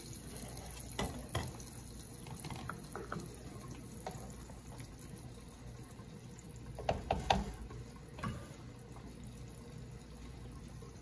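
Black slotted spoon stirring a pan of thin chile sauce with steak and potatoes: liquid sloshing and swishing, with a few light knocks of the spoon against the pan, several of them about seven seconds in.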